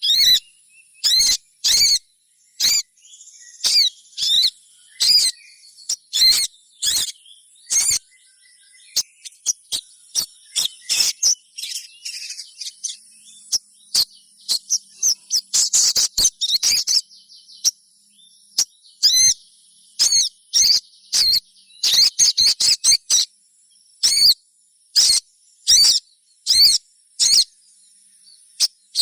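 Sogon (little spiderhunter) giving rapid, sharp chip-like calls in irregular runs, with a busier twittering stretch about halfway through: the call used to lure other sogon into singing. A faint, steady high insect whine runs underneath.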